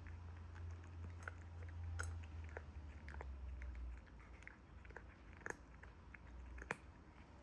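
Cat eating, chewing and crunching its food in quick irregular bites over a faint low hum.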